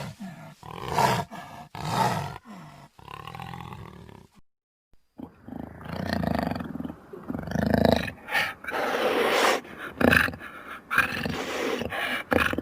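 Sound-designed dinosaur calls for Eoabelisaurus: a run of short growls and roars, broken about four seconds in by a second of dead silence, then longer, louder roars that cut off abruptly.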